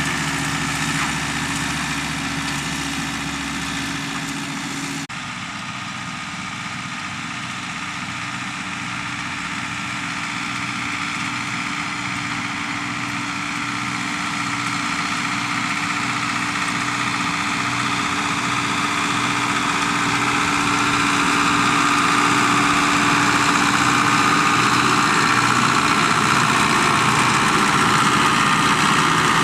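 Farm tractor engine running steadily. About five seconds in the sound changes abruptly, then grows steadily louder.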